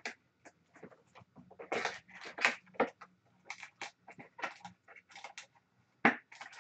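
Cardboard trading-card hobby box (2020-21 Upper Deck SP Game Used) being torn open by hand: a run of irregular crackling rips and rustles, with a sharp crack about six seconds in.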